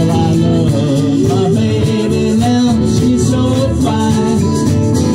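Live acoustic band playing: guitars and an upright bass, with a voice singing over them.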